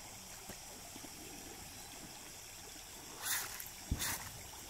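Two short splashes of water near the end, as a hand reaches into the shallow water, the second with a low knock against the wooden hull; before them only a faint steady hiss.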